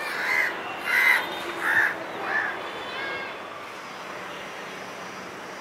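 A crow cawing four times in quick succession, a call about every 0.7 s, over steady background noise.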